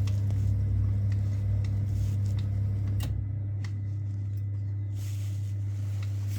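Ferroli Modena 80E gas boiler running after repair: a steady low hum, with a couple of light clicks about three seconds in.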